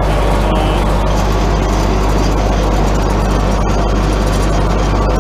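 JCB Fastrac 3230 tractor's diesel engine idling steadily, heard up close at the front of the machine.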